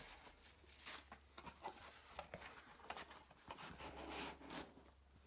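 Faint rustling and light clicks of a torn package and drink cans being handled, over a low steady hum.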